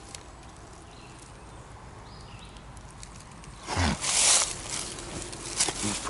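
Quiet outdoor background, then about four seconds in a loud rustle and crunch of leaves and shrub branches as someone moves through the bushes.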